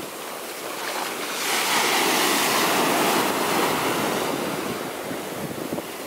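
Ocean surf washing up over sand at the waterline, a foamy hiss that swells about a second and a half in and then eases as the wash spreads out.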